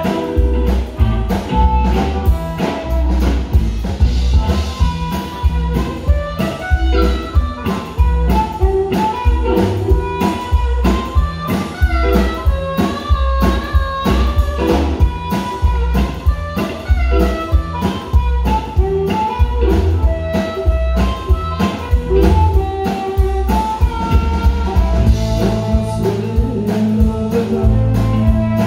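Live blues band playing an instrumental passage: an amplified harmonica plays the lead line over electric guitar and a steady drum-kit beat, with a held low chord coming in near the end.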